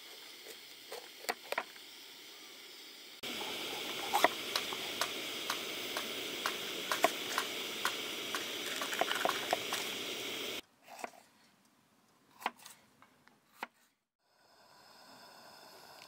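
Campsite cooking sounds in short cut-together clips: a steady sizzling hiss with many small pops from food frying for about seven seconds. Around it come quieter stretches with a few sharp clicks and knocks of utensils.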